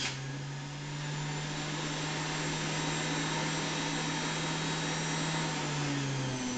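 Bullet Express centrifugal juicer motor running with a steady whirring hum; its pitch drops near the end.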